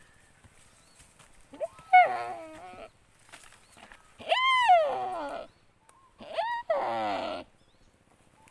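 Timor deer giving three loud distress bleats while a Komodo dragon bites into it. Each call rises briefly, then falls and breaks into a hoarse rasp, with a pause of about a second between calls.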